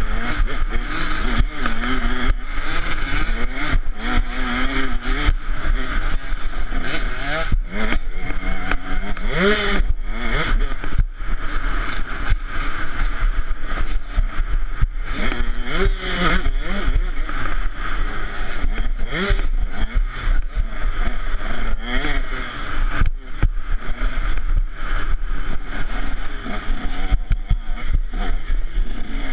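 KTM 150 SX two-stroke dirt bike engine ridden hard, revving up and down over and over as the rider works the throttle on a fast trail. Frequent knocks and rattles from the bumpy ground, with wind rush, on the onboard microphone.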